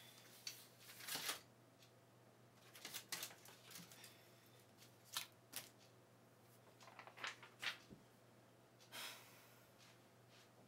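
Faint, scattered rustles and scratches of a hand running through and smoothing hair, heard as short irregular brushes over near silence.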